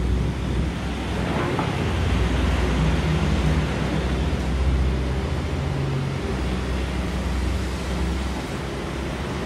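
Doosan 220 LC-6 excavator's diesel engine running steadily while it works, a deep rumble with wind buffeting the microphone.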